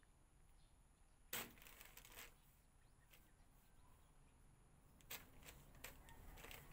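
Faint plastic rustling with a few light clicks: a sharp rustle about a second in, a smaller one soon after, and more scattered rustles and clicks near the end, as a kitten pounces and paws at a plastic bag and blanket fringe on a concrete floor.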